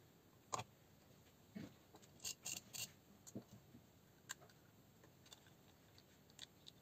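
Near silence broken by faint, scattered clicks and taps of small parts and tools being handled while working on an airsoft gearbox, with a sharp click about half a second in and a quick run of clicks a little past two seconds.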